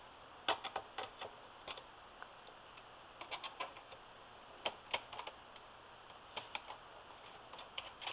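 Irregular clusters of light clicks and taps from a small screwdriver working a stubborn screw out of a laptop's plastic bottom case.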